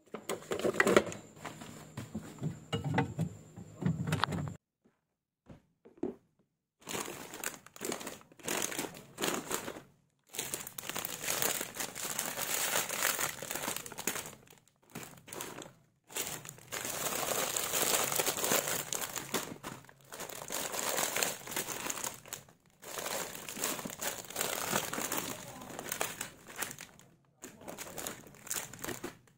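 Plastic snack bags crinkling and rustling as they are handled and packed into a plastic basket, in irregular bursts with short pauses.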